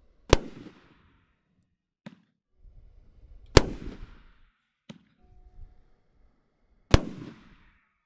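A 20-shot 500 g firework cake firing: three loud shell bursts about three seconds apart, each trailing off in a crackle of glitter, with a fainter launch pop between them.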